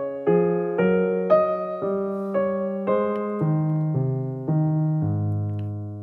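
Background piano music: a slow melody of struck notes over low chords, about two notes a second, ending on a longer held low chord near the end.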